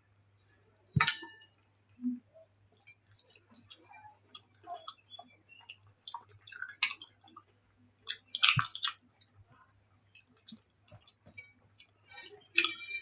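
Close-miked chewing of soft taro curry and rice: wet, squishy mouth sounds with scattered short clicks, the sharpest about a second in and a louder cluster about eight seconds in.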